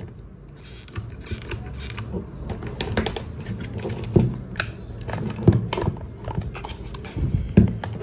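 Irregular light clicks, taps and knocks of plastic vacuum-cleaner parts being handled and hot-glued, over a low steady hum.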